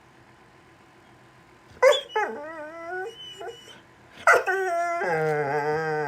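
A dog making strange whining vocal sounds, the kind a dog makes when it wants a toy. Two wavering calls, each opening with a sharp yelp: the first comes about two seconds in, and the second, about four seconds in, is longer and lower-pitched.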